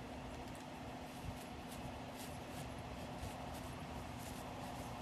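Faint steady background noise with a low hum and light scattered rustles.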